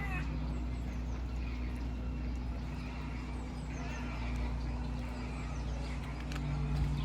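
Outdoor ambience: a steady low rumble with a faint hum, and faint chirps of small birds scattered over it.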